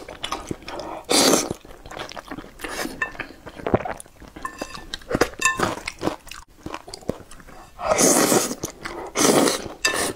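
Mouth slurping wide flat noodles in chili sauce: a loud slurp about a second in and two more close together near the end, with wet chewing and lip smacks between them.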